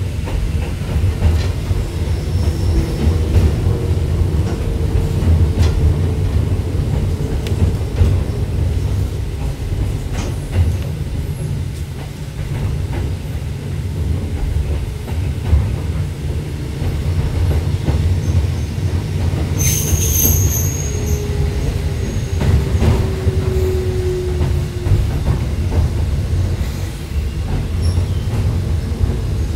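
Hakone Tozan Railway electric train running on its mountain line, heard from inside the car: a steady low rumble of wheels and running gear, with the wheels squealing on tight curves in drawn-out whines and a sharp high squeal about twenty seconds in.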